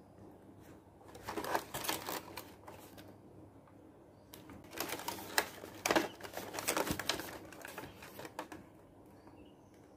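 Cardboard retail box with a clear plastic window being picked up and handled, crinkling and tapping under the fingers in two bouts: about a second in, and again from about four and a half seconds in.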